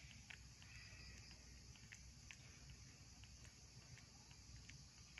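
Near silence: faint outdoor ambience, a steady high insect hiss with scattered faint ticks.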